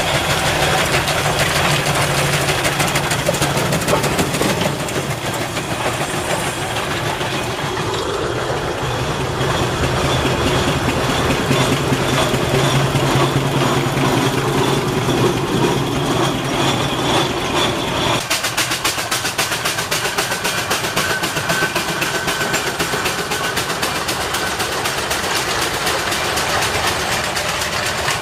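Steam traction engines running along a road, a steady mechanical clatter with a fast, even beat from the engines' motion and exhaust. The sound changes abruptly about two-thirds of the way through as a different engine takes over.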